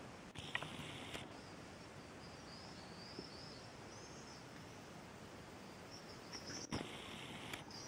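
Faint outdoor ambience: short high chirping calls repeating throughout. Two brief bursts of rustling noise, one about half a second in and one near the end, the second starting with a sharp click.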